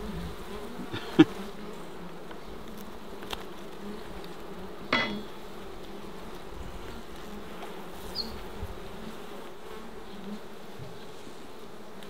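Honey bees buzzing steadily around open brood frames as a colony is moved frame by frame. A sharp knock about a second in and a lighter one around five seconds come from the wooden frames being handled.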